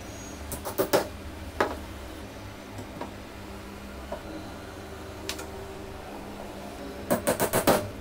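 A hammer tapping small nails into pine battens, sharp wooden knocks: a few single strikes in the first two seconds, then a quick run of about six taps near the end, over a steady low hum.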